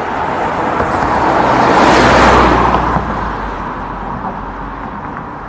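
Intro sound effect: a broad whooshing rush over a low rumble, swelling to its loudest about two seconds in and then slowly dying away.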